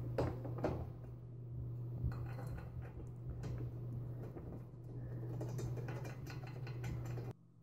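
Light metallic clinks and knocks of a steel desk-frame piece and its bolts being handled and fitted by hand, over a steady low hum. The sound cuts off shortly before the end.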